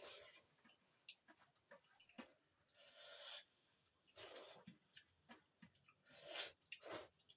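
Quiet breathing and eating sounds: about five soft breaths of roughly half a second each, with a few faint mouth clicks in between.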